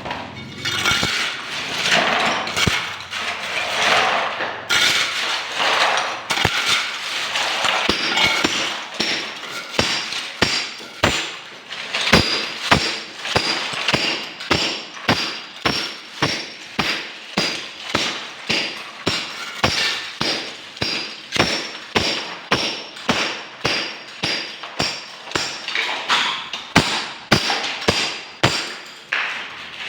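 A hammer striking steadily, about one and a half blows a second, each blow with a short metallic ring, during sink repair work. In the first several seconds there is rougher, irregular knocking and scraping before the steady blows begin.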